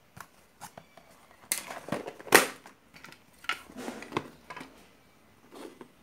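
Irregular clicks, rattles and rustles of small electronic parts being handled by hand, such as loose electrolytic capacitors and a circuit board. The loudest knock comes a little over two seconds in.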